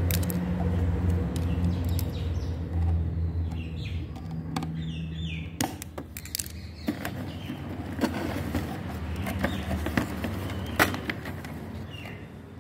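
Plastic toy blaster and cardboard box being handled as the blaster is pulled out of its packaging: scattered clicks and knocks of plastic on cardboard, over a steady low hum.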